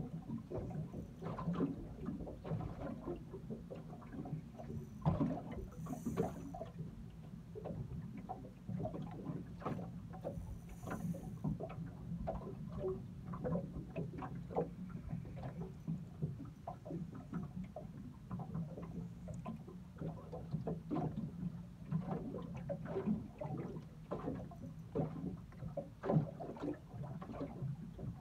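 Water slapping and knocking irregularly against a small boat's hull over a low steady hum, while a hooked bream is brought in. Two brief hissing splashes come about a third of the way through.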